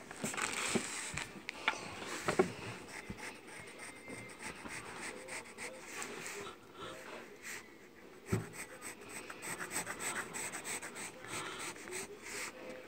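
Close rubbing and scratching against paper near the microphone, with a few sharp clicks scattered through it.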